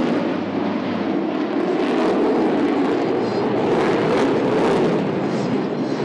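Fighter jet flying a display pass, its engines making a steady, loud rushing noise.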